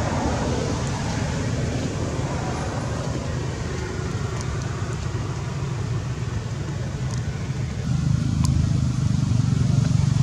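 Steady low rumble of outdoor background noise, getting louder about eight seconds in, with a few faint clicks.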